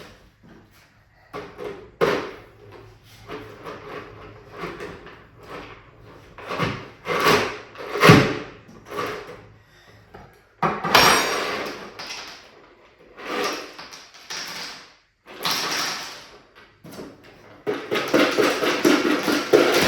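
Irregular handling knocks, clicks and rustles from electrical work with hand tools and small parts, with one sharp knock about eight seconds in as the loudest sound.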